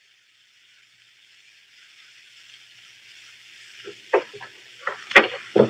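Hiss of an old broadcast recording that builds up from near silence, then from about four seconds in a run of quick, sharp footsteps, roughly two or three a second: a radio sound effect of people hurrying along.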